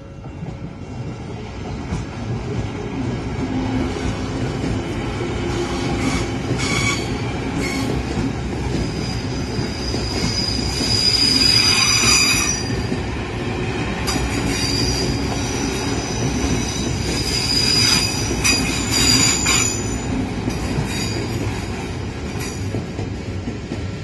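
Odakyu commuter electric train passing slowly through a level crossing, its wheels squealing in high tones over a steady rumble of wheels on rail. The squeal is loudest about halfway through and again a few seconds later.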